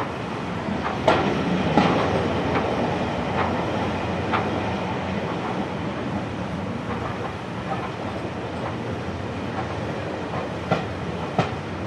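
Heritage railway passenger coaches rolling along the track with a steady running rumble, their wheels clicking over the rail joints. A few sharper clicks stand out, the loudest about a second in and again near the end.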